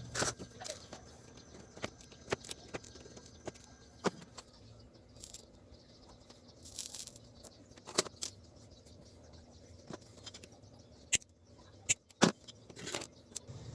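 Sparse light clicks and taps, as of small parts and tools being handled, with a brief hiss about seven seconds in.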